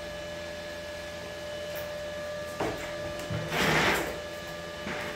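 Steady electrical hum with a few fixed tones from an idling MIG welding machine, before the arc is struck. A knock comes about two and a half seconds in, and a brief louder hiss a second later as the torch is handled.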